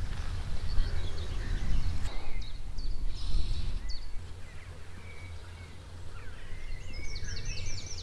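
Wind buffeting the microphone in a steady low rumble, with small birds chirping over it and a quick run of repeated chirps near the end.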